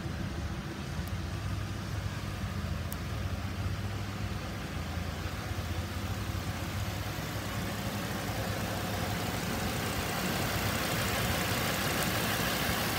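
2015 Ford F-550's 6.8-litre V10 gasoline engine idling steadily, growing louder and brighter over the last few seconds as the open engine bay comes close.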